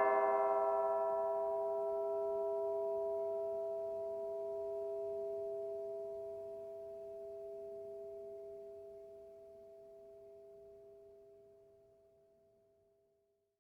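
Church bell ringing dying away after its last strike: the higher tones fade within the first couple of seconds, leaving two steady humming tones that die slowly and fade out near the end.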